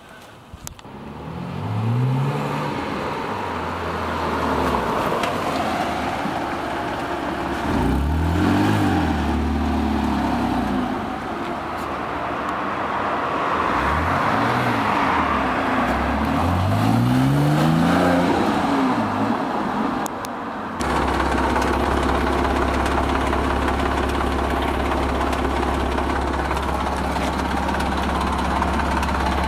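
Porsche 987 Boxster's 2.7-litre flat-six being revved several times, its pitch rising and falling with each blip, then settling into a steady idle from about two-thirds of the way through. The car is sold as having an engine rattle.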